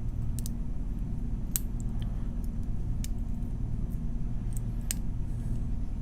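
A lock pick raking the pins of a cheap Tru Bolt padlock: scattered light metallic clicks and scrapes, about half a dozen sharp ones, over a steady low hum.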